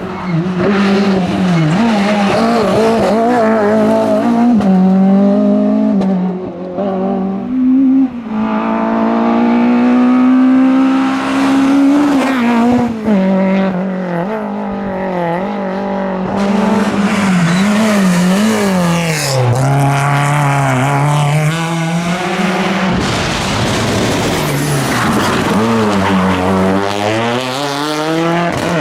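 Rally cars at full throttle on a special stage, one after another. Their engines rev up and drop sharply again and again through gear changes and corners.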